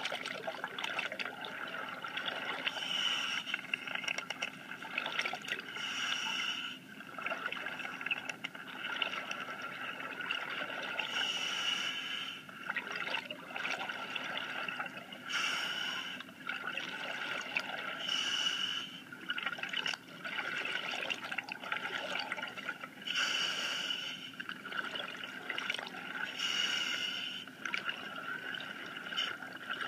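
Water sloshing and trickling, swelling into a louder hiss about every three to four seconds.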